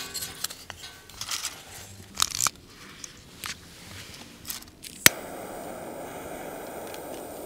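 Split wood sticks and dry leaves clicking and rustling as they are set into a small folding metal wood stove. About five seconds in comes a sharp click of a jet torch lighter's igniter, then the steady hiss of its flame as it lights the kindling.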